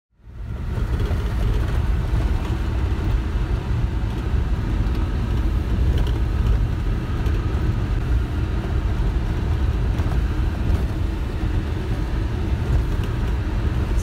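Steady low rumble of a vehicle driving on a rough dirt road, heard from inside the cab: engine and tyre noise that fades in at the start.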